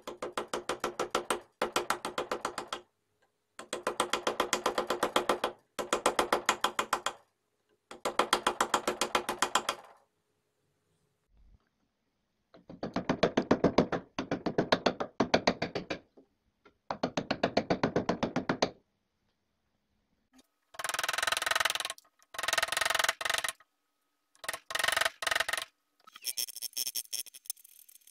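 Hand chisel cutting into a wooden cello bridge blank clamped in a bench vise: runs of rapid, evenly spaced clicks, each lasting one to two seconds with short pauses between, brighter and sharper in the last few runs.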